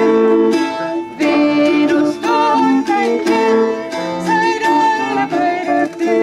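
Medieval folk music played live: a woman singing over a strummed plucked string instrument, with long held notes underneath.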